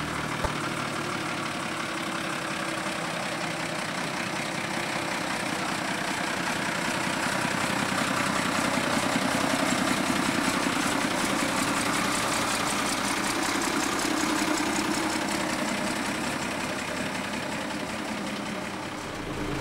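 1963 Morris FFK-140 truck's engine running as the truck drives by, growing louder as it comes close about halfway through and fading as it pulls away.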